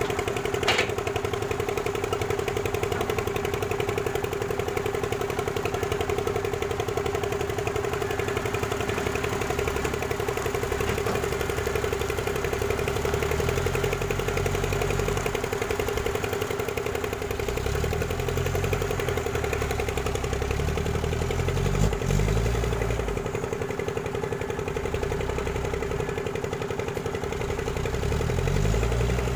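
Excavator's diesel engine running steadily, its low note rising and falling again and again through the second half as the load changes. A sharp click about a second in, and a knock a little past the middle.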